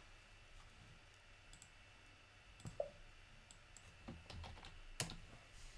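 Faint, scattered computer mouse clicks and keyboard keystrokes, a few separate clicks with the sharpest one about five seconds in.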